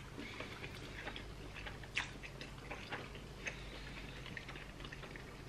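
Quiet eating at the table: forks clicking lightly against plates now and then, with soft chewing of pasta.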